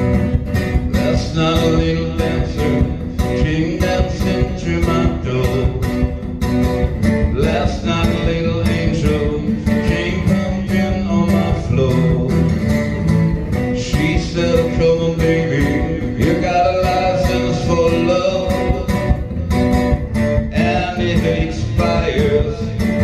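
Two acoustic guitars strummed together in a live acoustic rock cover, with a singer's voice over them through the PA.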